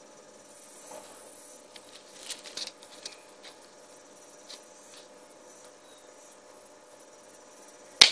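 An old iPod thrown down strikes hard ground with one sharp metallic clatter near the end, after a few light handling clicks and taps.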